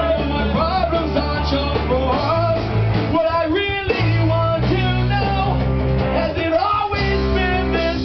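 Live rock band playing amplified: electric guitar and a singer's voice over steady bass notes.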